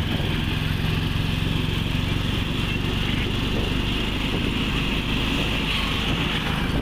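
Engine of a small road vehicle running steadily at cruising speed, heard from on board, with steady wind and road noise.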